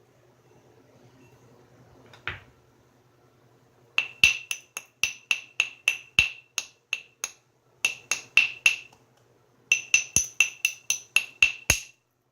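Quick light taps of a knapping tool on the edge of a stone being knapped, each with a short glassy ring. They come in two runs of about three taps a second, with a short pause between, as the platform edge is worked up before a flake is taken.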